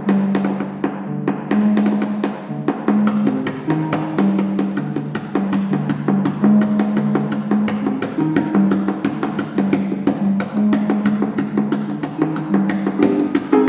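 Concert pedal harp played solo in a fast, rhythmic flamenco-style passage: many sharp plucked attacks over ringing low bass notes.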